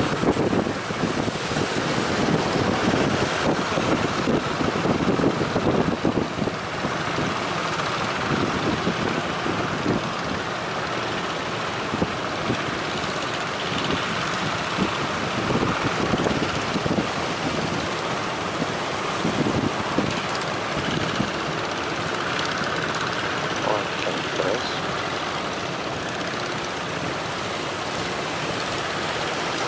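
Strong wind buffeting the microphone, heaviest in the first several seconds and steadier after, over a steady engine running.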